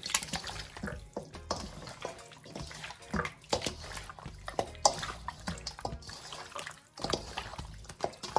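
Ribs being stirred in a sticky marinade of soy sauce, honey and sesame oil: irregular wet squelches and clicks.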